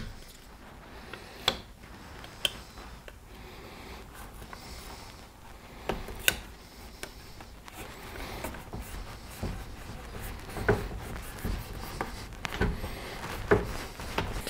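Hands pressing and rubbing foil tape down along the crack of a plastic bumper cover, with soft rubbing and crinkling and a scattering of light clicks.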